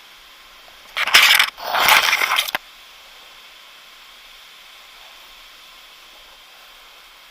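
Two loud, rough scraping or crunching noises about a second in, a short one and then a longer one, over a steady hiss.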